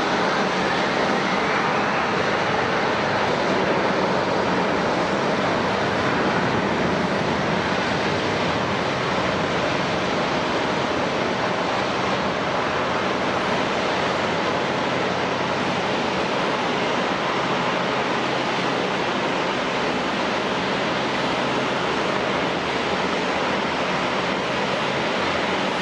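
Jet airliner engines running: a steady, even roar, with a faint whine rising in pitch during the first few seconds.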